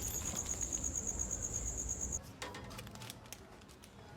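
A steady, high-pitched, rapidly pulsing trill over a low rumble. Both cut off abruptly about two seconds in, leaving faint scattered clicks.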